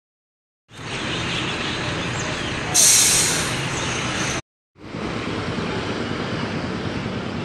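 Busy city street traffic: cars and motorbikes running past, with the murmur of people on the pavement. It starts after a moment of silence. About three seconds in, a louder hissing rush lasts around a second and a half. The sound cuts out briefly just before the middle.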